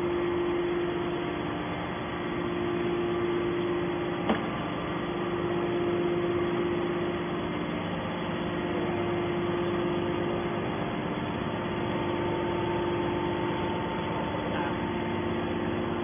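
Electric-driven hydraulic power unit of a large scrap metal baler running with a steady hum, with a single sharp click about four seconds in.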